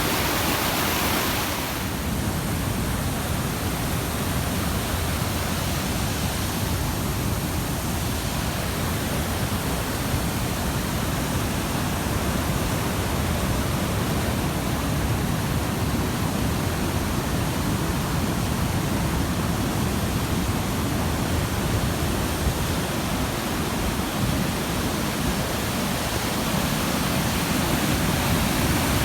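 Waterfalls and rapids of the Tulijá river making a steady rush of falling water, with a slightly brighter hiss in the first couple of seconds.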